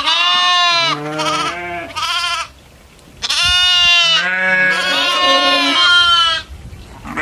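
Goats bleating: three bleats in the first two and a half seconds, then after a short pause one long, drawn-out bleat of about three seconds with a second bleat overlapping it.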